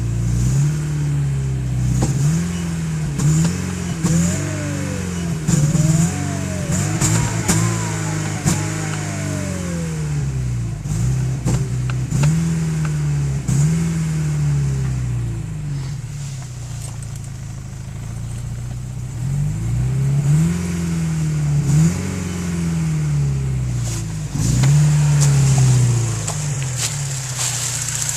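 Porsche 944 Turbo's turbocharged 2.5-litre four-cylinder engine revved again and again in quick blips, with a quieter idle stretch about two-thirds of the way through. A whine from the turbocharger rises and falls with each blip. The owner suspects something is out of balance on the turbo, such as debris buildup or a broken fin.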